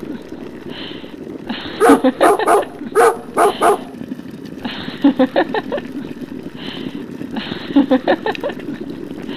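Dog barking in short rapid bursts of several barks each, about four bursts with pauses between.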